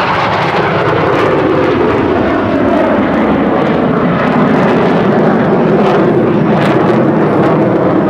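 Jet roar of a USAF Thunderbirds F-16 Fighting Falcon's single Pratt & Whitney F100 turbofan as the jet climbs steeply away; loud and steady, its pitch sinking lower as it recedes.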